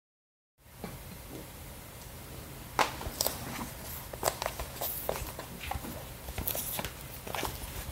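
Hands handling a long cardboard Apple Watch box in its plastic shrink wrap: irregular crinkling, tapping and rubbing, densest from about three seconds in, over a steady low hum.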